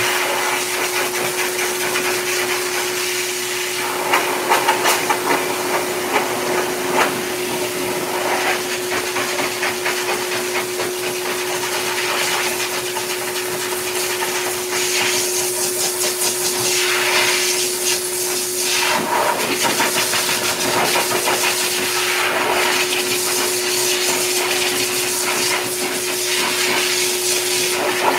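Heavy-duty K9 dog dryer blowing air through its hose into a dog's thick coat: a loud, steady rush of air over a constant motor hum. The rush changes and flutters as the nozzle moves through the fur.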